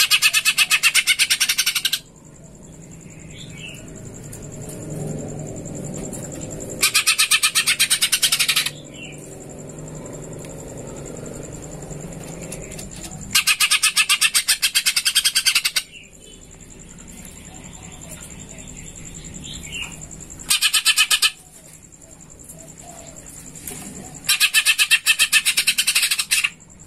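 Greater green leafbird (cucak ijo) singing: five bursts of very rapid, sparrow-like chattering notes, each about two seconds long, with quieter gaps between them. A faint steady high whine runs underneath.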